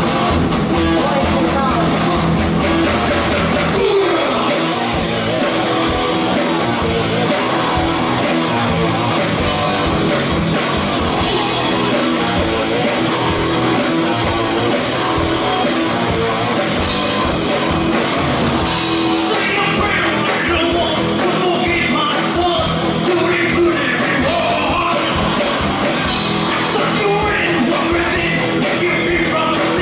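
Live rock band playing loudly: electric guitars, bass and drum kit, with vocalists singing and shouting into microphones.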